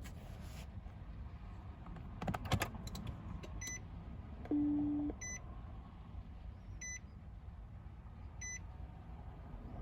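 Warning beeps from a 2007 Nissan Altima Hybrid that won't start. A few quick clicks come about two seconds in, then a longer low beep, the loudest sound. Four short high beeps follow, evenly spaced about a second and a half apart.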